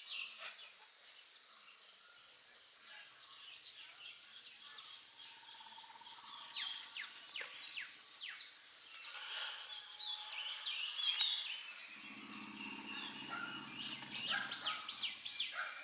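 Steady high-pitched drone of insects, with scattered short bird chirps over it and a low hum for a few seconds near the end.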